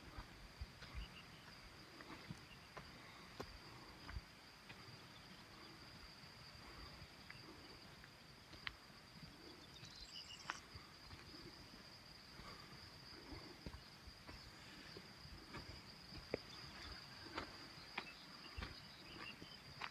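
Crickets chirring in one faint, steady high tone, with scattered soft clicks and a brief higher chirp about ten seconds in.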